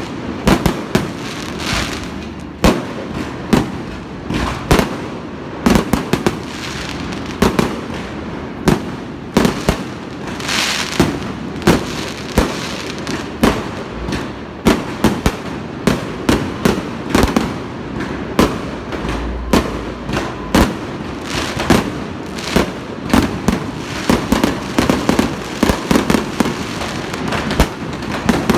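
Aerial fireworks display: a rapid, irregular series of loud shell bursts and bangs, several a second at times, over a continuous crackling din.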